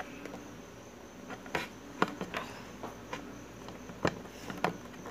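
Sharp, separate plastic clicks, about five over the stretch, as the arm and body joints of a Marvel Legends Anti-Venom action figure are moved and handled.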